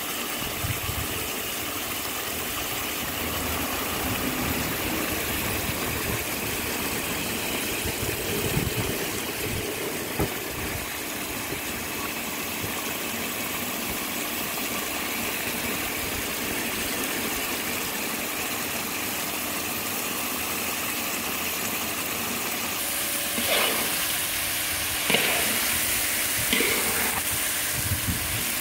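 Chicken in a thick chili sauce simmering in a wok, a steady hiss and bubbling. In the last few seconds a spatula scrapes and knocks against the wok as the chicken is stirred.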